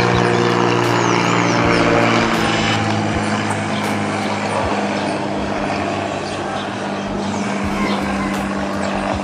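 Cessna 206H Stationair's six-cylinder Lycoming IO-540 engine and propeller droning steadily as the plane flies past on final approach, slowly fading as it moves away.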